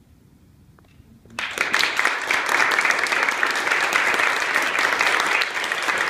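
Audience applauding. After a near-quiet pause the clapping starts suddenly about a second and a half in and goes on steadily.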